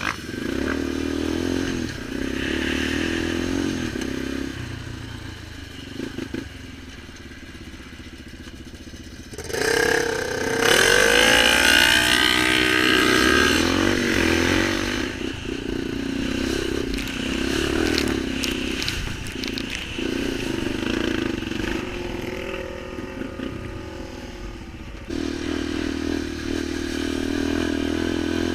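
Off-road vehicle engine running while riding, with a louder burst of revving and shifting pitch about ten seconds in that eases back a few seconds later.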